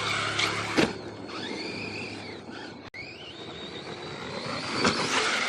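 Electric RC car motor whining, its pitch rising and falling with the throttle. There are a few sharp knocks as the car hits the dirt, one about a second in and two near the end.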